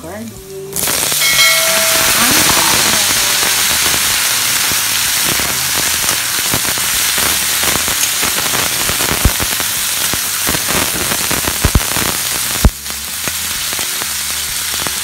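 Sliced eggplant going into hot oil and browned garlic in a wok: a loud sizzle starts suddenly under a second in and keeps on steadily, with scattered pops, easing a little near the end.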